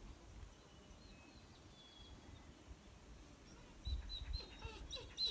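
Faint, short, high-pitched animal calls: a few scattered chirps, then from about four seconds in a quick run of yips or squeaks, several a second.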